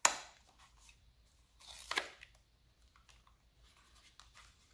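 Small white cardboard box being torn open by hand: a sharp tear right at the start, a second tear about two seconds in, then faint rustling of the cardboard being handled.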